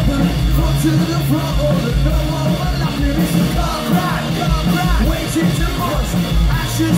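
Indie rock band playing live at full volume: a lead singer over electric guitars, bass and drums.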